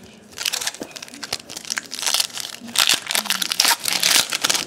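Foil wrapper of a 2012 Topps Series 2 baseball card pack being torn open and crinkled by hand. It is a dense crackling that gets louder after about two seconds.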